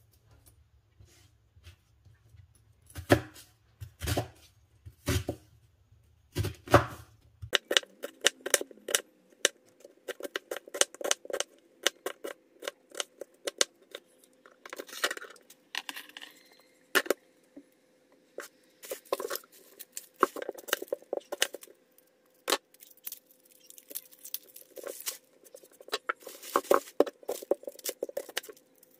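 Chef's knife chopping onion on a plastic cutting board: a few separate slicing knocks about a second apart, then from about seven seconds in a long run of rapid taps as the onion is diced.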